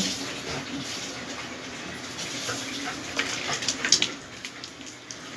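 Dogs scuffling in play on a wooden floor: a steady rustling hiss with scattered clicks and taps, the sharpest about four seconds in.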